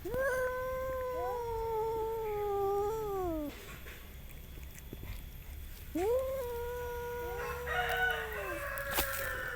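Two cats yowling at each other in a territorial standoff before a fight: two long, drawn-out yowls with pitch falling at the end, the first at the start and the second about six seconds in, each overlapped by the other cat's wavering cry.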